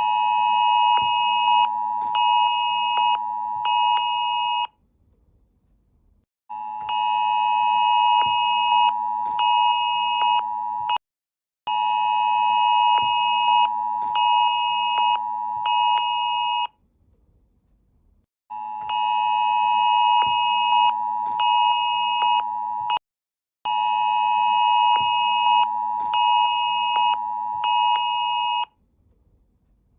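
Electronic emergency alert tone sounding in a repeating pattern of one long blast followed by two short ones, with a brief silence between groups. The pattern comes around about every five to six seconds.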